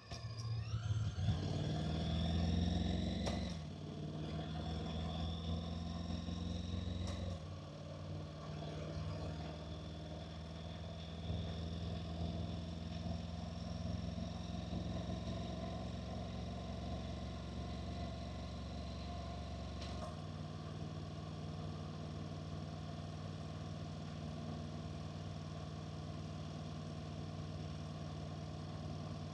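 Honda NC750X motorcycle's parallel-twin engine pulling away with its pitch rising. The dual-clutch gearbox shifts up twice, a few seconds apart, and the engine then runs steadily at cruise. About twenty seconds in the deepest part of the engine sound drops away as it eases off.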